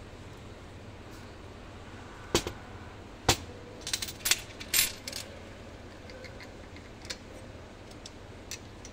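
Loose steel washers, nuts and bolts clinking against each other and the table as they are picked through by hand: a cluster of sharp metallic clinks, some ringing briefly, between about two and five seconds in, then a few lighter clicks.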